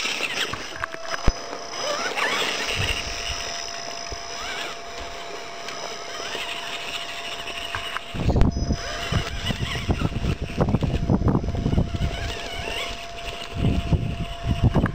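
Axial Wraith RC rock crawler's electric motor and drivetrain whining steadily as it crawls over rocks. From about halfway through, irregular low rumbling buffets the microphone.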